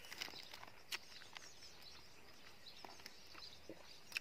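Faint outdoor garden ambience with birds chirping softly in the distance, and a few short soft ticks close by.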